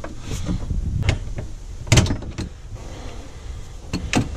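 Metal hand tools (socket ratchet, socket and wrench) clinking and knocking against a mounting bolt and the frame as a harness bolt is fitted. There are several short, separate clicks, the loudest about two seconds in.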